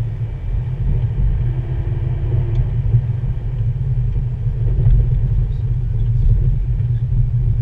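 Steady low rumble of a car driving along, heard from inside the cabin.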